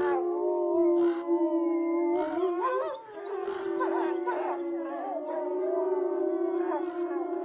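Wolves howling in chorus: several long, overlapping howls held at different pitches, some gliding up and down, with a short lull about three seconds in.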